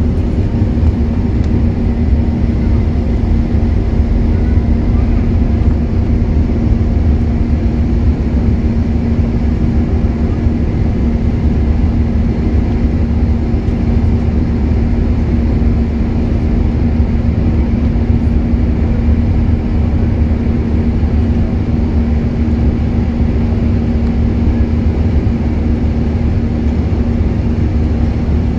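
Airbus A380's four jet engines at takeoff thrust, heard from the cabin over the wing during the takeoff roll and initial climb: a loud, steady rumble with a strong low hum that holds unchanged throughout.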